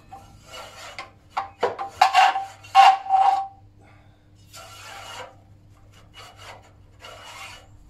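Steel rod scraping in and out of a steam boiler's small fire tubes, rodding out soot toward the smoke box, in a run of rasping strokes. The loudest strokes come about two to three seconds in, and softer ones follow.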